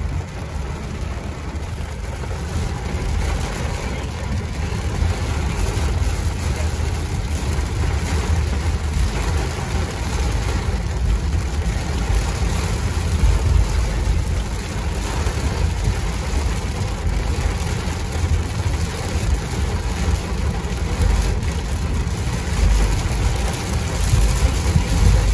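Steady low rumble of a car driving on a wet road, heard from inside the cabin, with rain hissing on the car and windshield.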